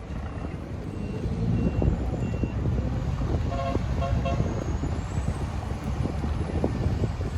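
Steady low rumble of river boat engines with wind on the microphone. About halfway through, a horn gives two short toots.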